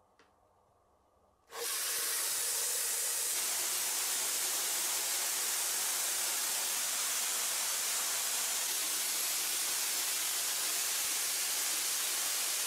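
A huge load of tiny 3 mm marbles is released at once and pours down a wooden marble run. A dense, steady hissing rush starts suddenly about a second and a half in.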